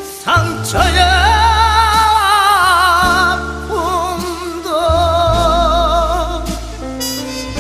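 Background song: a singer holds long notes with wide vibrato over a steady bass line, in two phrases with a short break between them.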